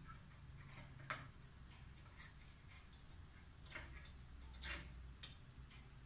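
A few faint, sharp clicks and taps spread over several seconds, the clearest about a second in: a rose-ringed parakeet's claws and beak on its metal perch as it climbs down.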